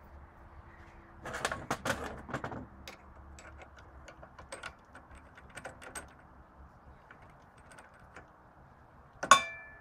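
Metal-on-metal handling at a drill press with an intake valve in the chuck: a scraping rattle about a second in, scattered light clicks, and one sharp clink that rings briefly near the end, over a faint low hum.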